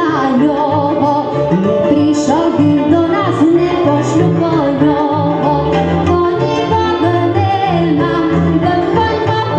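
A female singer sings a Slovak folk song, backed by a live folk band of fiddles, double bass, accordion and cimbalom with a steady pulsing bass line.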